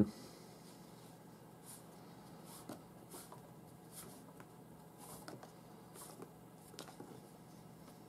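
Paracord being handled and pulled through a knot: faint, scattered rustles and swishes of cord sliding against cord and fingers, over a low steady hum.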